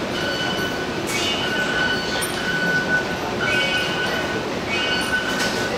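Taipei Metro fare gates playing short piano-note chimes as passengers go through, one after another about once a second, over steady station background noise.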